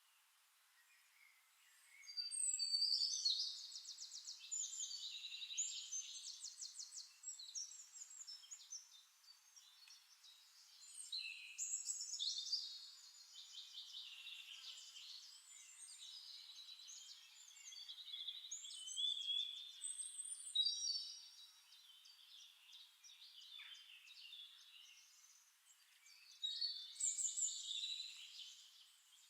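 Songbirds singing in bursts of high chirps and rapid trills, each phrase a few seconds long, with quieter pauses between them.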